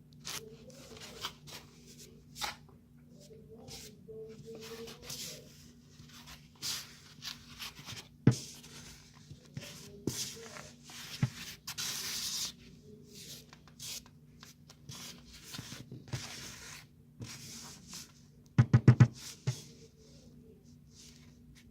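Bags and containers of starch being handled and put away: rustling, scraping and scattered clicks, with a quick run of about five sharp knocks a little before the end.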